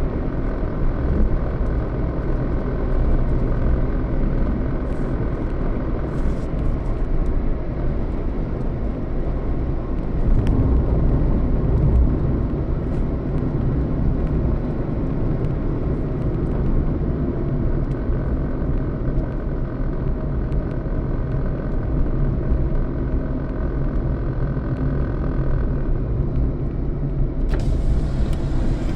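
A road vehicle running steadily, with a continuous low engine and road rumble that holds the same level throughout.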